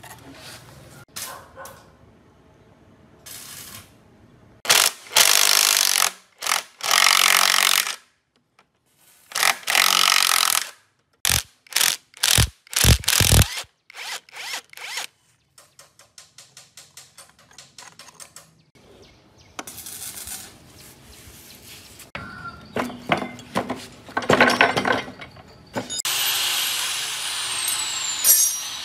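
Cordless impact wrench with a long socket extension, run in repeated bursts of a second or so to undo bolts on an old truck engine and gearbox. About halfway there is a quick run of sharp metal knocks.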